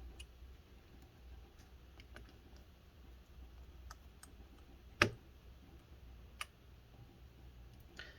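Small precision screwdriver fastening tiny screws into a laptop's internal frame: faint scattered clicks of the bit and screws against metal, with one sharp click about five seconds in and a smaller one about a second and a half later.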